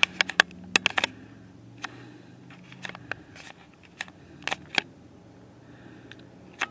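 Irregular sharp clicks and taps: a quick cluster in the first second, then a few scattered ones, over a faint steady low hum.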